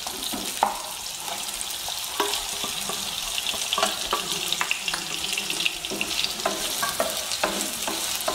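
Sliced onions, ginger and garlic sizzling in sunflower oil in a non-stick pan, with a steady hiss and repeated short knocks and scrapes of a wooden spatula stirring. A few seconds in, diced carrot and green chilli are tipped into the pan.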